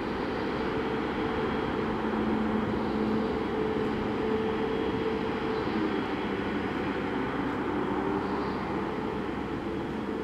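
Heavy mining machinery running under load: the large diesel engines of a Liebherr R 9350 hydraulic excavator and a Komatsu HD785-7 haul truck. It is a steady, loud drone whose engine tones rise and fall slightly as the load changes.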